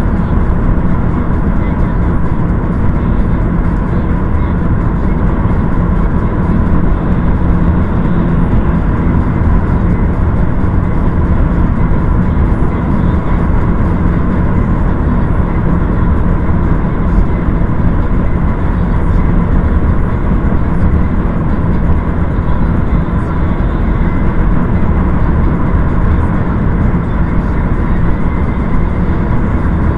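Steady driving noise of a car on the move: engine and tyre rumble, with no changes in pace.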